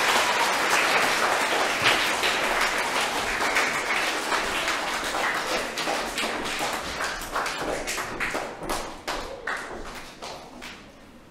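An audience applauding: dense clapping at first that thins out into scattered single claps and dies away near the end.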